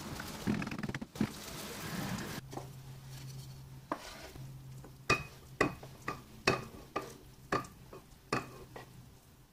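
Rice filling sizzling in a nonstick frying pan as it is stirred with a wooden spoon. Then, over a low steady hum, about ten sharp ringing knocks as the wooden spoon and pan knock against a ceramic bowl while the filling is scraped out into it.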